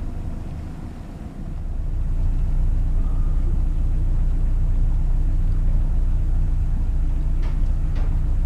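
Sailboat's auxiliary inboard engine running as the boat motors in to the berth, a steady low rumble that grows louder about a second and a half in.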